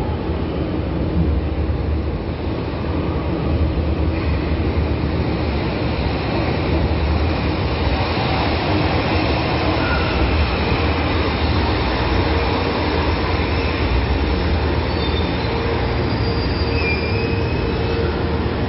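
São Paulo Metro train pulling into the station platform and slowing to a stop, with a steady rumble of wheels on rail throughout. A few short high squeals come near the end as it stops.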